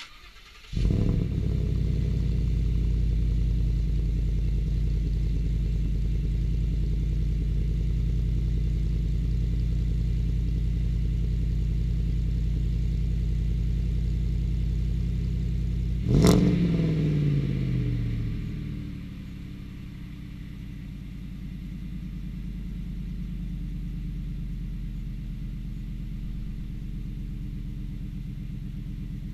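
2015 Ford F-150's 5.0L V8, running through a Magnaflow dual side-exit exhaust with the resonator deleted, starts up about a second in and idles loud and steady. About 16 seconds in it is blipped once, the revs falling straight back, and a few seconds later the idle settles lower and quieter.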